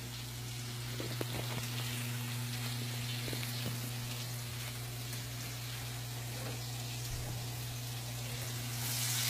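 Green beans and zucchini sizzling in olive oil in a frying pan: a steady, even hiss over a constant low hum, growing a little louder near the end.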